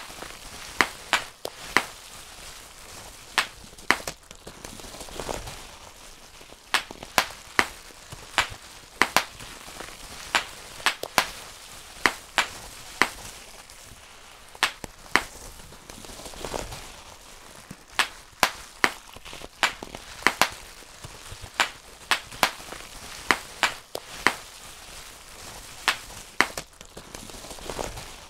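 Bubble wrap being popped by hand: sharp pops come irregularly, often in quick pairs or small clusters, with a plastic crinkle between them.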